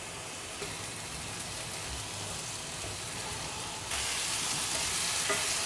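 Chopped bitter gourd and onions sizzling in hot oil in a stainless steel pan. The sizzle gets louder about four seconds in, as the vegetables are stirred with a wooden spatula.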